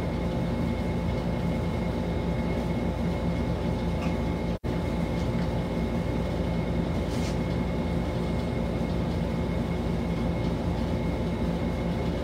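Steady machine-like background hum, several constant tones over a noise bed, that cuts out for an instant about four and a half seconds in.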